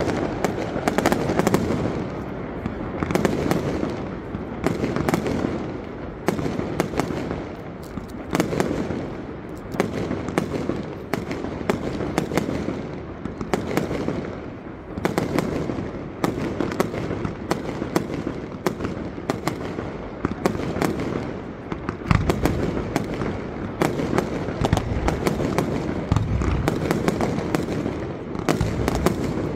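Fireworks display: a dense, continuous run of sharp bangs and crackles from bursting aerial shells, with heavier deep booms in the last third.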